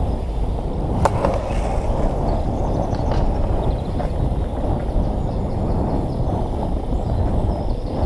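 BMX bike tyres rolling over concrete skatepark banks and bowls, with steady wind rush on the helmet-mounted camera's microphone and a sharp click about a second in.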